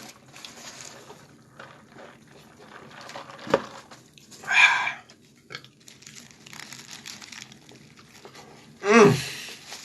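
A man chewing a mouthful of fried chicken sandwich, with wet mouth and lip sounds, a sharp click about three and a half seconds in, a short breathy hiss about a second later, and a brief voiced sound from his throat near the end.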